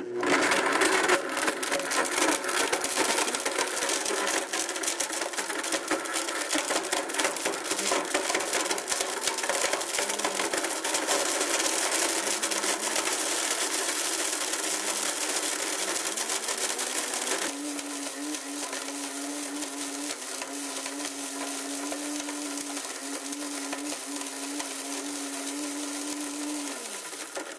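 Blendtec blender running its preset smoothie cycle on a 16-foot tape measure: the motor runs loud with a dense grinding clatter of tape-measure pieces in the jar. About seventeen seconds in, the cycle shifts to a slightly quieter, steadier hum with a clear tone, which falls in pitch as the motor winds down and stops at the very end.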